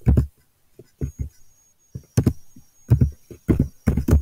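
Computer keyboard being typed on: short, thumpy keystrokes at an uneven pace, with a pause of most of a second before the middle.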